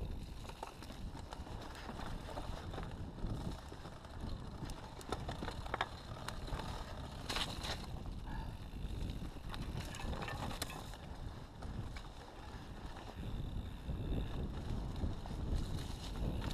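Mountain bike riding over a muddy woodland trail: tyres rolling on dirt and the bike rattling, with wind on the microphone. There are sharper clatters about seven and ten seconds in.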